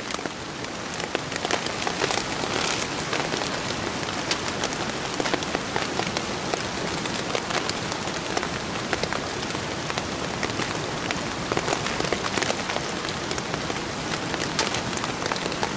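Steady rain falling on a nylon poncho strung overhead as a tarp, with many individual drops ticking on the fabric.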